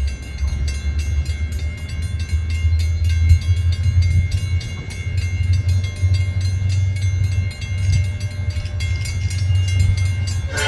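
Four-unit consist of first-generation EMD diesel locomotives (a GP30 leading a GP9, GP7u and GP9H) working a freight train, their engines giving a deep, steady rumble. A rapid, even clicking and a few faint steady high tones sit over it.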